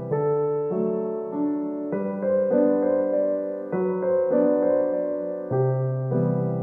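Background solo piano music, with held chords changing about once a second.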